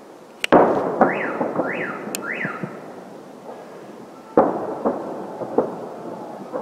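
Fireworks salute shells bursting: a sharp bang about half a second in and another a moment later, each trailing off in a rolling rumble, then another loud bang past the four-second mark followed by smaller pops. Between the first bangs a car alarm wails three times with a rising-and-falling tone.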